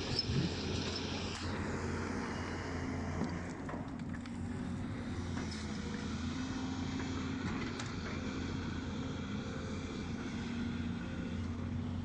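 Volvo excavator's diesel engine running steadily at work, a continuous low drone with mechanical noise over it.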